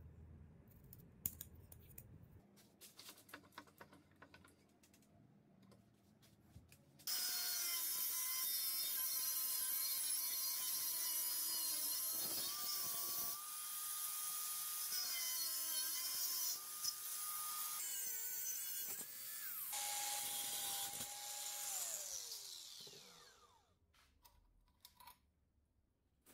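Angle grinder with a cutting disc starts about seven seconds in and cuts through the steel canister of a car oil filter clamped in a vise, its motor pitch stepping up and down as the load changes, then spins down with a falling whine after about fifteen seconds of cutting. Before it starts, light clicks and taps of the filter being handled.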